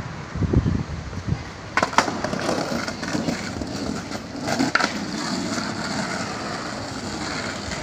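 Skateboard wheels rolling over paving, with sharp clacks of the board about two seconds in and again near five seconds.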